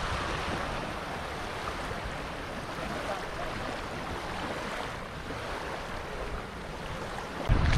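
Steady rush of moving water, with wind noise on the microphone; a sudden low rumble of wind buffeting comes in near the end.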